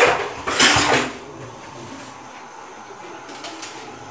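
Two short scraping or rustling noises of handling at the pot in the first second, then a low steady hiss of the gas burner running on a medium flame under the pot.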